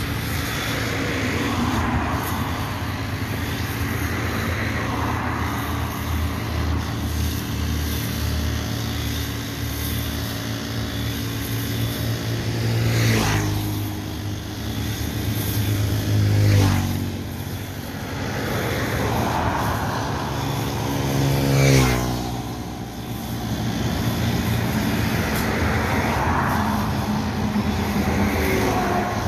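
Honda GX35 four-stroke brush cutter running as it cuts roadside grass, its note swelling and easing with each sweep. Three vehicles pass close by in the second half, each briefly louder than the cutter, their engine pitch dropping as they go past.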